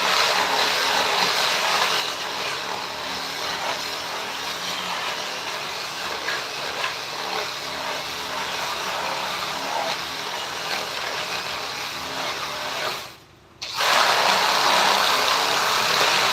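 Electric hand power tool running steadily, most likely working wood. It is louder at the start and again near the end, and stops briefly about 13 seconds in.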